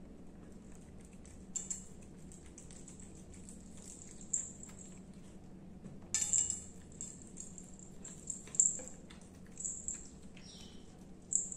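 Domestic cat eating wet canned cat food: soft wet chewing and licking clicks that come in scattered short bursts every second or two, over a faint steady low hum.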